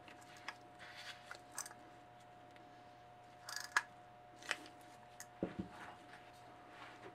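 Metal moped wheel hub handled in gloved hands: scattered light clicks and clinks of its parts, then a dull knock about five and a half seconds in as it is set down on the wooden workbench. A faint steady hum lies underneath.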